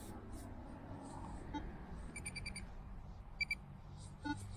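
Metal detector target tones: a quick run of four high beeps about two seconds in, another short high beep about a second later, and a lower-pitched beep near the end, over a faint steady hum.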